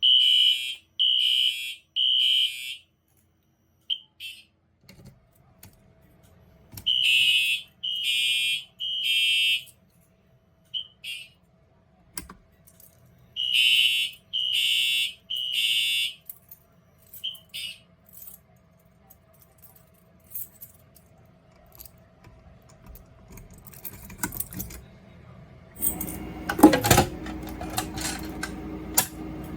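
Electronic fire alarm horns sounding in groups of three blasts, the temporal-3 evacuation pattern, three times over, with short single chirps between the groups. Near the end there is irregular clicking and rattling that grows into a louder clatter.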